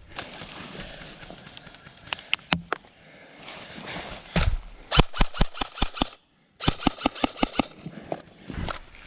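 Airsoft gun firing in rapid strings of shots, about six a second, in two bursts with a short pause between them, after a few scattered single shots.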